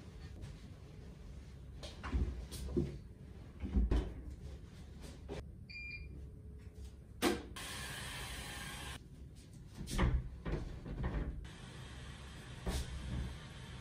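Knocks and bumps of a front-loading washing machine being loaded and its cupboard door handled, with a short electronic beep from the machine about six seconds in, followed by about a second and a half of hiss.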